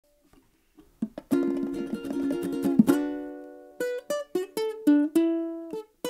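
Music on a plucked string instrument. About a second in comes a quick flurry of rapidly repeated notes, then a slower line of single picked notes that each ring and fade.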